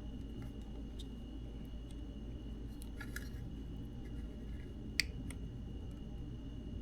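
Faint ticks and taps of a small capacitor being handled and seated in a component tester's socket, with one sharp click about five seconds in. A steady low hum and a thin high tone run underneath.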